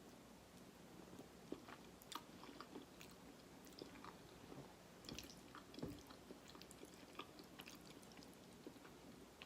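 Faint close-miked chewing of soft food, with small wet mouth clicks and smacks scattered throughout and a few louder bites.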